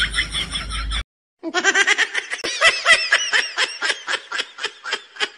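High-pitched laughing that cuts off suddenly about a second in, then after a short gap a new fast, pulsing laugh of about five "ha"s a second that fades near the end.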